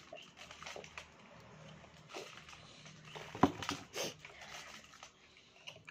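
Drinking from a plastic cup, with gulping and swallowing, then close mouth sounds of chewing. A single sharp knock about three and a half seconds in is the loudest sound.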